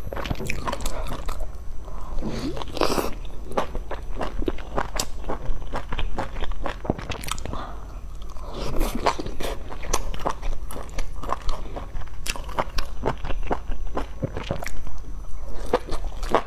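Biting and chewing of pan-fried dumplings, a run of many quick, sharp crunchy clicks and wet mouth sounds, with two longer rushing sounds about three seconds in and again about nine seconds in.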